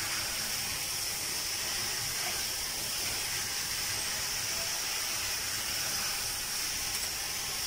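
Pressurised water jet hissing steadily as it sprays onto a perforated stainless-steel instrument tray in a steel sink: a pre-rinse to remove blood from surgical instruments before ultrasonic cleaning.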